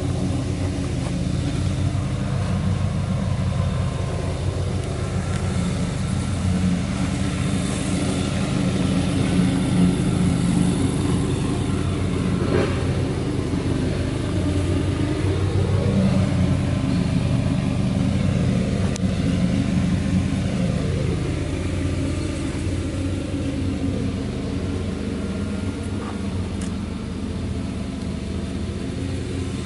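2001 Ford F-550 Super Duty truck's engine idling steadily, with a brief rise and fall in pitch about halfway through.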